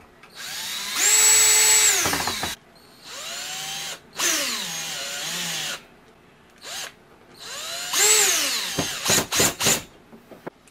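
Cordless drill driving screws into a wooden strip. Several separate runs of the motor, each speeding up, holding and winding down, with the pitch sagging as a screw bites. A few quick trigger pulses near the end.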